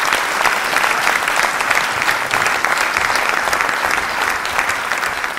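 Audience applause: many people clapping steadily after the end of a speech.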